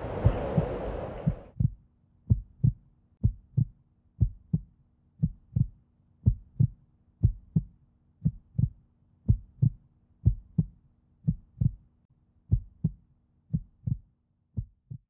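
Heartbeat sound effect: pairs of short, deep thumps about once a second over a faint steady hum, growing fainter near the end. A noisy swell dies away in the first second and a half.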